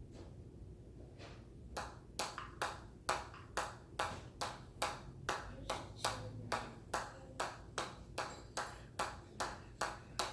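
A steady run of light, sharp pinging taps, about two and a half a second, starting about two seconds in: repeated strokes of a counted hand-skill drill, each tap one count.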